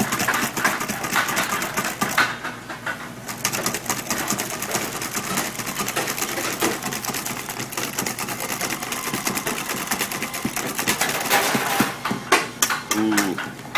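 A large wire balloon whisk beating heavy cream in a stainless steel bowl by hand: a fast, even rattle of wires striking the metal bowl, the cream thickened almost to stiff peaks. Near the end the strokes thin out to a few separate taps.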